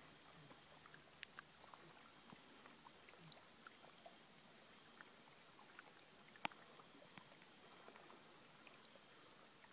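Near silence: faint outdoor background with a few scattered small ticks and one sharp click about six and a half seconds in.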